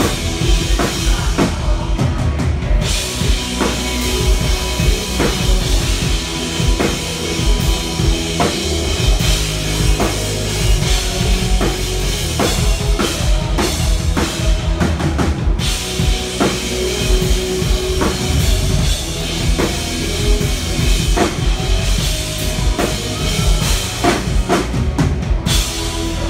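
Live rock band playing loud, driven by a drum kit with bass drum and cymbal hits, heard from the side of the stage.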